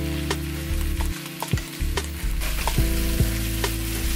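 Komatsuna greens and sakura shrimp sizzling as they are stir-fried in a nonstick frying pan. Wooden chopsticks stir and tap against the pan, giving sharp clicks several times a second over the steady hiss.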